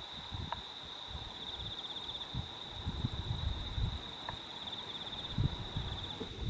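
Insects chirring in one steady, high, unbroken note that pulses in places. Underneath are irregular low thuds and rustling, with a louder thump right at the end.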